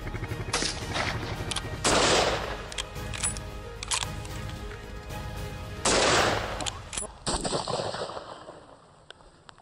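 Gunfire: a run of quick shots, with two much louder reports, each ringing out, about four seconds apart.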